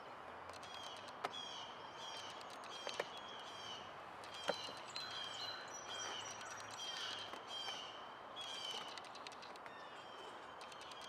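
Songbirds chirping again and again over a steady background hiss. A few sharp clicks come in the first half.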